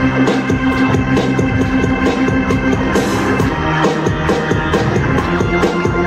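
Live band music: electric organ chords over a steady drum beat with cymbals.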